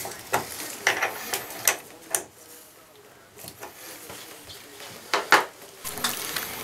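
Sharp clicks and light metallic clinks of small chrome faucet parts and tools being handled at a bathtub faucet, in two quick clusters with a quieter pause between.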